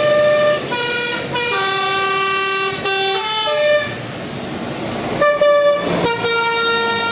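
A bus's telolet horn, its air horns playing a quick melody of held notes that step up and down in pitch, with a louder, rougher blast a little after five seconds in.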